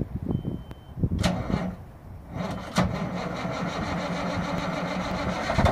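Cummins N14 straight-six diesel in a 1998 Kenworth C500 being started on boosted, weak batteries: a few pulsing cranking strokes, then it catches about two seconds in and settles into a steady run.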